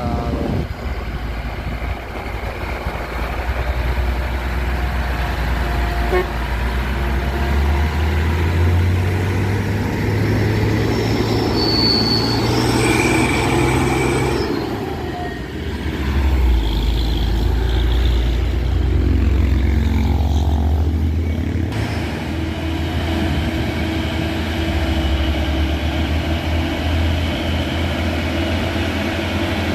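Heavy truck diesel engines running with a deep, steady drone. A brief high-pitched horn toot sounds about halfway through.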